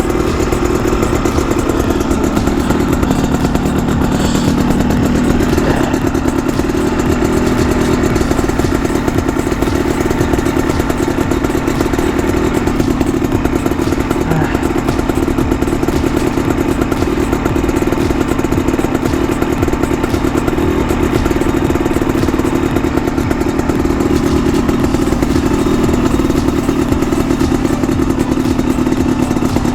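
Honda CRM250R's single-cylinder two-stroke engine running at a steady, even speed, with some clatter mixed in.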